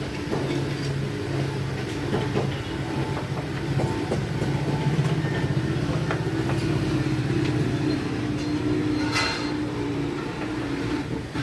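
A steady low mechanical hum with scattered metallic clicks and clinks, and one sharper knock about nine seconds in.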